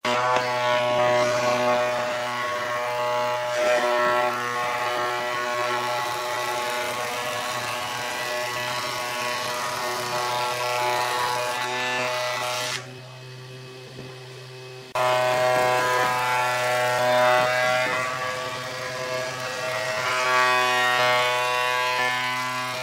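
Combination jointer/thickness planer running as a wooden board is fed through its cutterhead: a steady motor hum under a loud, many-toned whine of the knives cutting. The sound drops abruptly for about two seconds past the middle, then comes back just as suddenly.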